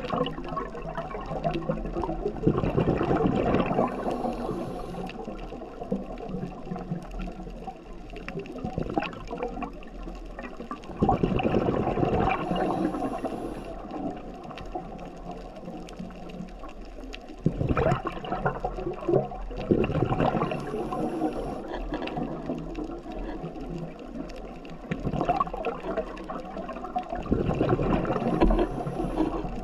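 Scuba diver's regulator breathing underwater: exhaled bubbles gurgling out in four loud surges about eight seconds apart, each lasting a few seconds, with a short high hiss near the end of each.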